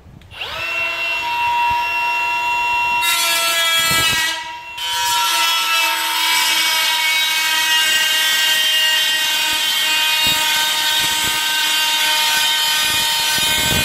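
Electric Milwaukee die grinder spinning up to a steady high whine, then a cone-ended burr grinding a groove along a crack in sheet steel, with a rough grinding hiss over the whine. The grinding lets up briefly about four and a half seconds in, then carries on. The groove is cut so the weld can penetrate into the metal.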